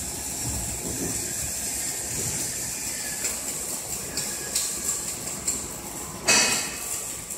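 Steady workshop noise with a constant high whine, under light clicks and rubbing as cables are handled in a plastic cable drag chain, with one louder clack a little past six seconds in.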